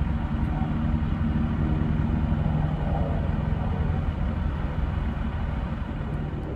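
Aerial ladder fire truck's diesel engine running steadily, with an even low drone.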